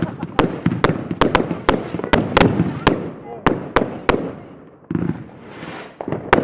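New Year's fireworks going off: a rapid string of sharp bangs and cracks for the first three seconds, then fewer and more spread out, with a loud bang at the very end.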